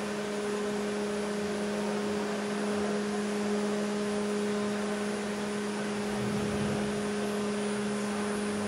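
A steady hum with a low and a higher tone, over an even hiss that does not change.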